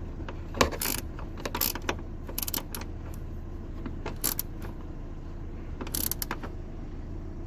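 Short runs of ratchet clicks from a socket wrench tightening the mounting bolts of a new gas boot strut, heard about six times, over a steady low hum.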